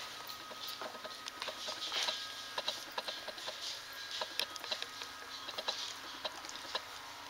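A newborn standard poodle puppy suckling at its mother's teat: irregular, quick wet clicks and smacks, several a second.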